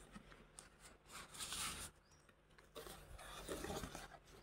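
Faint rustling of a cardboard cake box being handled, in two soft stretches: about a second in, and again around three seconds in.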